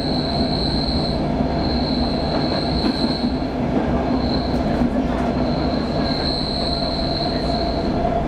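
Stockholm metro train running, heard from inside the carriage: a steady rumble of wheels on track with a high, thin wheel squeal that comes and goes in several drawn-out spells.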